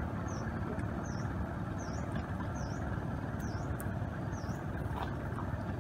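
A steady low rumble, with a high, short down-and-up chirp repeating about once a second over it.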